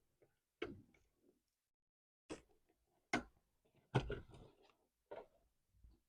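A handful of short, separate clicks and light knocks, about five over six seconds with a small cluster just past the middle, from a circuit board or module being handled and seated into place inside an opened LED TV.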